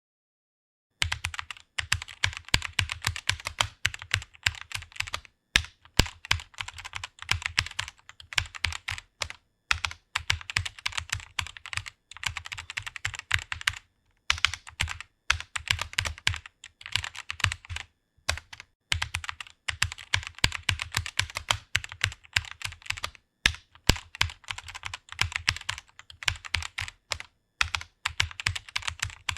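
Fast typing on a computer keyboard: a dense run of key clicks that starts about a second in, broken by short pauses every few seconds.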